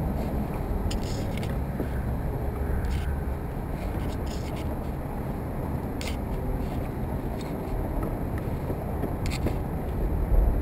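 Wind buffeting the microphone in a steady, uneven low rumble, with a few light clicks and scrapes scattered through and a louder low bump near the end.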